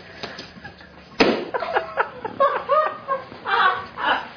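A sharp knock about a second in, then a run of short clucking vocal sounds, several a second, each rising and falling in pitch.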